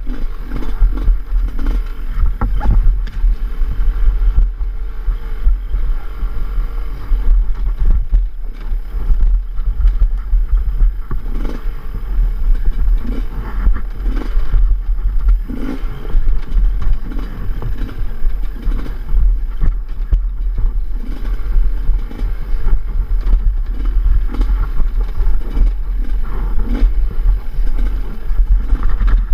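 Enduro motorcycle engine revving up and down again and again while riding rough off-road terrain, picked up on the rider's action camera. A heavy low rumble on the microphone and scattered knocks and clatter run under it.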